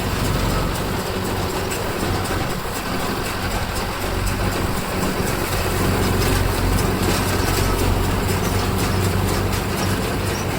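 Tractor engine running steadily under load while driving a Jaysan round baler, with the baler's continuous mechanical clatter on top of the engine hum.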